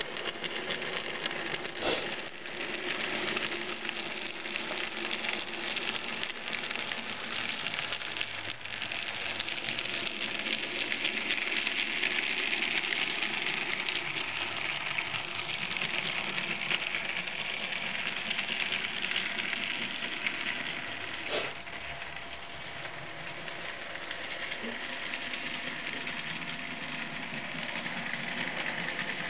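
N gauge model train running on the layout's track: a steady whir of motor and wheels that grows louder through the middle and eases off later, with two sharp clicks, one about two seconds in and one about three quarters of the way through.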